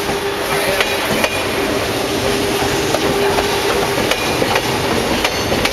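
A Renfe Cercanías electric commuter train passing close by, its wheels clacking irregularly over the rail joints. A steady hum runs beneath and fades out about four and a half seconds in.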